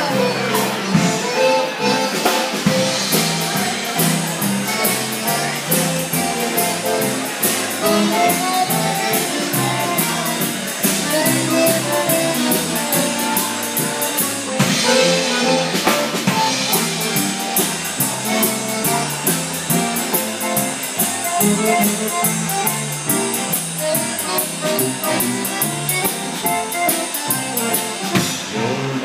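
Live polka band playing: tuba, drum kit, button concertina and electric keyboard, over a steady, even drum beat. The drums drop out for a moment about halfway through.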